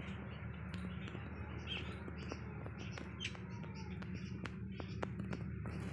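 Small birds chirping in short, scattered high calls, with a few sharp ticks, over a steady low hum.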